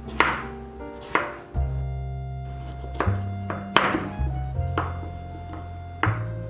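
A kitchen knife chopping on a cutting board in sharp, irregular strokes, over light background music with sustained chords and a moving bass line.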